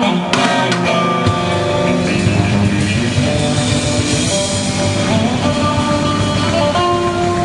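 Live blues band playing: electric guitar notes over bass guitar and drum kit, with the bass and drums filling in about a second in.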